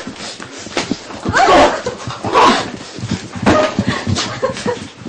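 People crying out and yelling during a scuffle, several loud pained cries, mixed with sharp hits and knocks.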